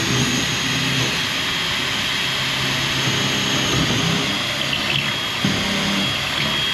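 Power drill running steadily under load, boring into wood, with a steady high whine over a wavering lower motor hum.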